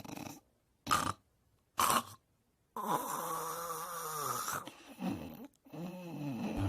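Snoring in short bits separated by silent gaps: two brief snorts about a second apart, then a longer snore whose pitch falls, followed by shorter snores that rise and fall in pitch.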